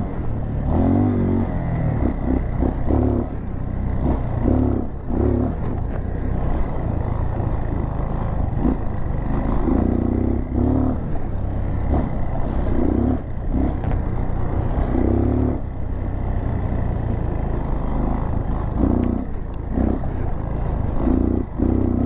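Four-stroke dirt bike engine running as the bike is ridden along a rough, sandy trail, with wind buffeting the microphone in uneven gusts. Scattered knocks and rattles come from the bike going over bumps.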